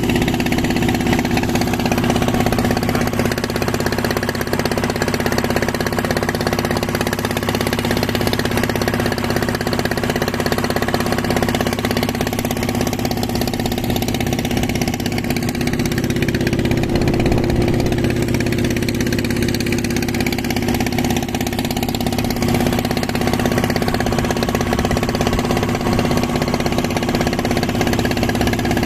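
A small fishing boat's engine running steadily at an even speed while under way, with water rushing along the hull.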